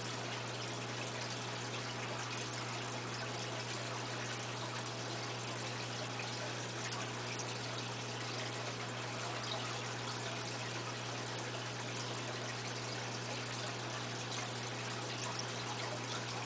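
Aquarium filter running: a steady trickle of water over a constant low hum.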